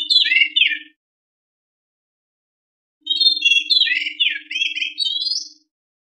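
White-rumped shama song: a phrase of clear whistles and fast varied notes that ends about a second in, then a longer phrase from about three seconds in. A faint low hum sits under each phrase.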